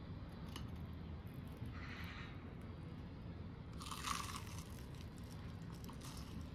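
Crisp crunches of a breaded, deep-fried onion ring being bitten into, a few short bites with the loudest about four seconds in, over a low steady background rumble.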